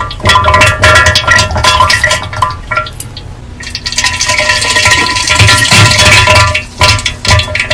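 Loud meme sound-effect track: pitched chiming tones over a low bass, broken by many sharp clinking hits, with a quieter stretch about three seconds in.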